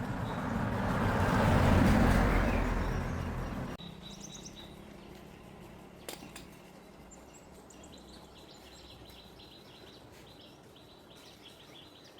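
A loud rushing noise swells, peaks about two seconds in and cuts off abruptly near four seconds. After that comes quieter outdoor background with a single sharp click, then birds chirping repeatedly from about seven seconds on.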